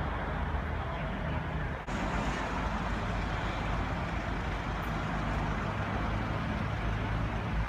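Idling vehicle engine hum under steady street traffic noise, with a brief drop about two seconds in.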